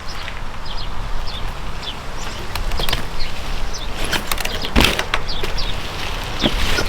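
Specialized Stumpjumper 15 mountain bike being ridden: tyres rolling with a steady low rumble of wind and ground noise, broken by a few sharp clacks, the loudest about five seconds in.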